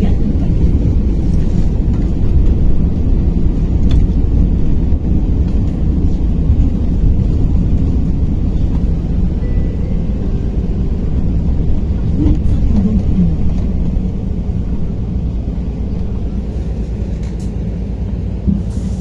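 Low, steady road and running rumble heard inside the cabin of a moving KAMAZ-6282 electric bus, easing a little near the end.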